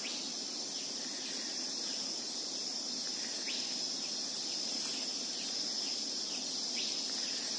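Steady, high-pitched chorus of rainforest insects, with a faint high chirp repeating about once a second.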